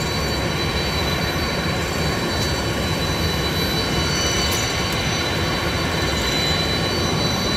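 Boeing 747-400's jet engines running at taxi idle: a steady rush with a few high, constant whine tones.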